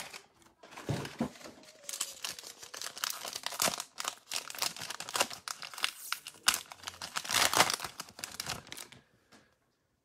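Foil wrapper of a trading-card pack being torn open and crinkled by hand, a dense run of crackles and rips that stops about a second before the end.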